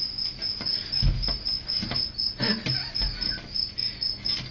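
Crickets chirping steadily, a high, evenly repeated chirp several times a second, with a few dull knocks underneath.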